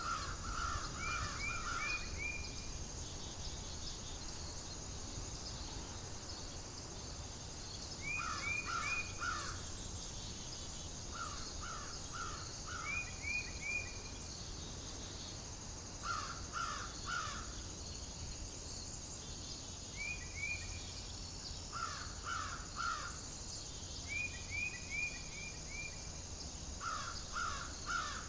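A bird calling in runs of three or four short calls, a run every three to four seconds, over a steady high-pitched insect drone.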